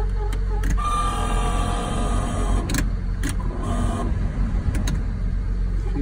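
Clicks of a pickup's heater control being switched, over a steady low hum, with a whining tone for about two seconds starting near a second in and again briefly around four seconds.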